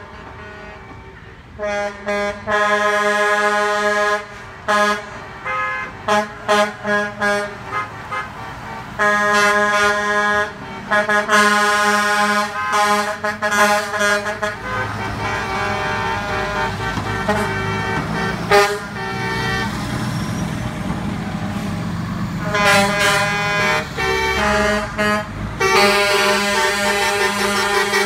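Tow trucks' air horns blasting as the trucks pass, in long held blasts and quick runs of short toots. Between the horn bursts, the trucks' diesel engines rumble as they roll by.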